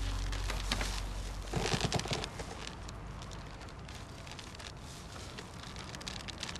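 Rope noose rubbing and creaking as it is gripped and pulled tight: a quiet crackling rustle with a cluster of small clicks between about 1.5 and 2 seconds in.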